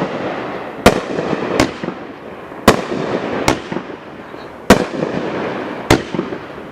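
Aerial fireworks bursting: about six sharp bangs at uneven intervals, each followed by a long echoing tail.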